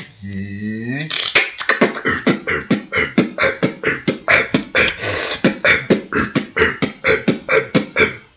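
Freestyle beatboxing with a hand cupped at the mouth: a held, buzzing bass tone for about the first second, then a fast run of sharp percussive mouth beats that stops just before the end.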